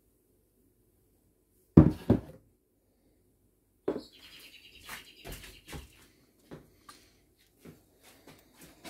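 A plastic blender jar set down on the countertop with two sharp knocks about two seconds in, then a softer knock. After that comes a couple of seconds of high chirping over scattered light clicks and taps.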